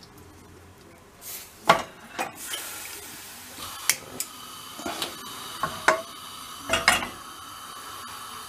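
A frying pan and pots knocking and clinking on the grates of a gas stove as a burner is lit and the pan set over it: a string of sharp, irregular clanks.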